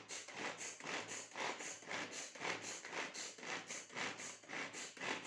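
Hand-operated vegetable chopper worked in quick, even strokes, about two a second, its blades chopping onion, tomato, green chilli and coriander inside the plastic bowl.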